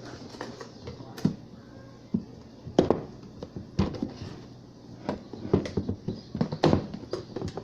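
Kitchen handling noises while sugar is being spooned out: a dozen or so irregular sharp clicks and light knocks of a spoon and containers, the loudest about three seconds in and again near the end.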